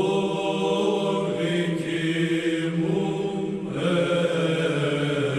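Greek Orthodox Byzantine chant for Good Friday: voices singing slow, long-held notes.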